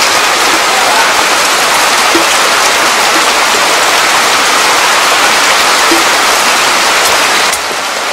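Loud, steady rush of splashing water, dropping off a little about seven and a half seconds in.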